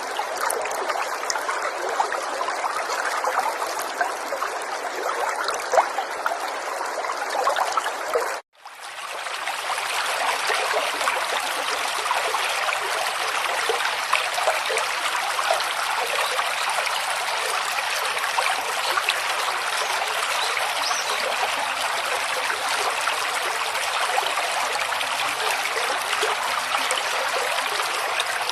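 River water flowing and trickling steadily. About eight seconds in, it cuts out for a split second and comes back brighter and hissier: a splice between two recordings.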